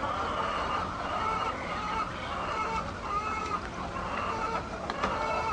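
A flock of hens calling and clucking, with many short overlapping calls.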